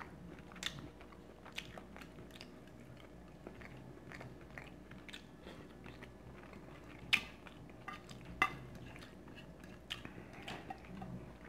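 Close-up mouth sounds of a person chewing and biting food, soft and scattered, with two sharper clicks about seven and eight and a half seconds in.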